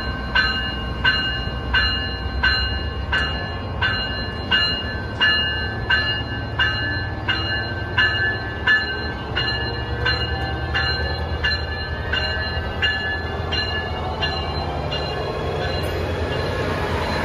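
Coaster commuter train's Siemens Charger SC-44 diesel locomotive rumbling as it moves slowly past, with a bell ringing in steady strokes about one and a half a second that fade out near the end.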